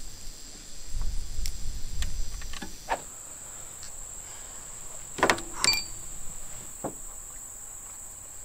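Insects buzzing in a steady high tone, louder from about three seconds in. A low rumble about a second in, and a few sharp clicks or knocks about five seconds in.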